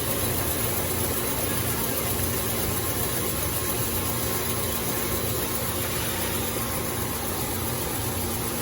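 Shin Nong rice mill machine running steadily while milling red rice, a continuous machine noise with a constant hum.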